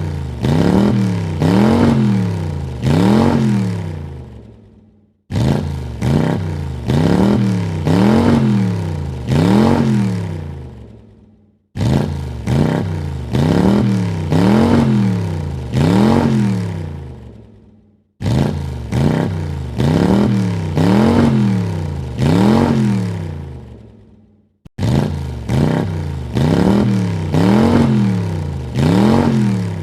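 Car engine revved in four quick blips, the pitch rising and falling each time before it dies away, with the same burst repeated about every six and a half seconds.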